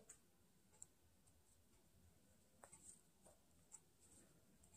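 Near silence, with a few faint, short clicks of a crochet hook working yarn as a double crochet stitch is made.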